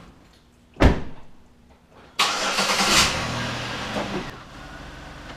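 A single sharp thump, then about two seconds in a car engine is started; it catches at once and settles into a steady idle.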